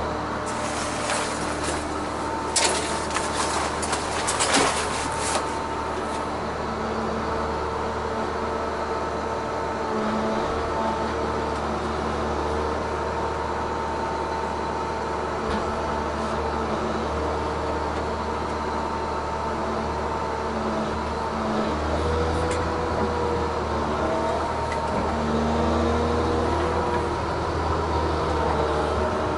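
Tigercat 1075B forwarder's diesel engine and hydraulics running, heard inside the cab, with a hydraulic whine stepping up and down in pitch as the crane works. A cluster of sharp knocks and clatters comes in the first few seconds, and the low engine note grows louder about three-quarters of the way through.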